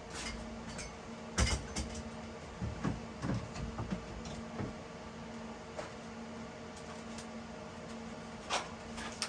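Scattered clicks and knocks of objects being handled, the sharpest about a second and a half in, over a steady low hum.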